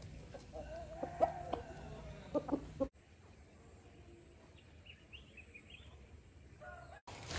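Chickens clucking: a drawn-out call with short sharp clucks for about three seconds. After that the sound drops much quieter, with a few faint high chirps.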